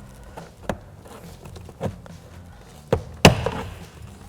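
Hard plastic clicking and knocking as a door's power-window switch cover is pried up with a trim tool, four separate clicks with a loud sharp snap about three seconds in as the clips let go.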